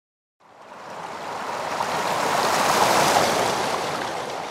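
A rushing, surf-like whoosh of noise starts about half a second in out of complete silence. It swells to its loudest around three seconds and then slowly fades.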